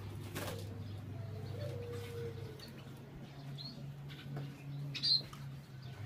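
Doves: brief wing flapping at the start, then one low, drawn-out coo about a second and a half in. Short high chirps from a small bird come in, the loudest one sharp about five seconds in, over a steady low hum.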